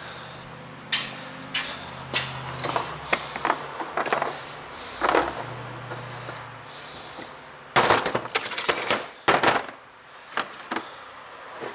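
Metal mower-bagger bracket parts and bolt hardware being handled and fitted: scattered knocks and clinks, then a loud burst of metallic clattering about eight seconds in.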